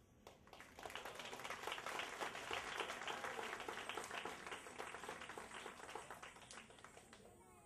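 Audience applauding, a fairly light round of clapping that dies away near the end.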